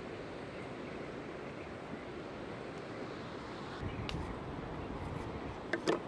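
Steady outdoor hiss of wind and river water. A soft bump comes about four seconds in, and two sharp knocks of a knife on a wooden cutting board come near the end.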